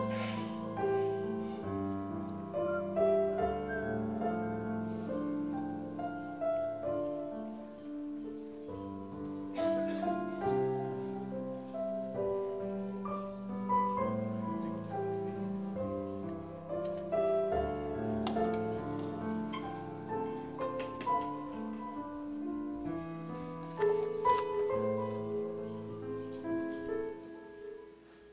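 Piano music, a continuous run of held notes and chords, with the final notes dying away near the end.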